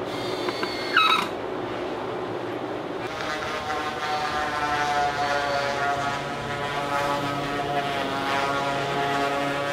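Cordless drill whirring briefly about a second in, its pitch falling as it winds down. From about three seconds a steady drone of several held tones takes over, shifting pitch a few times.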